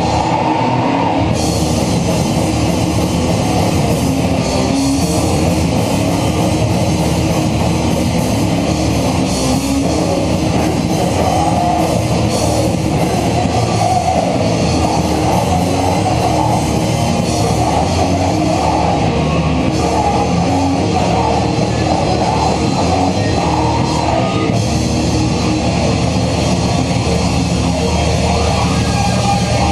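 Hardcore/thrash metal band playing loud with distorted electric guitars, bass and a drum kit, the cymbals crashing in hard about a second and a half in.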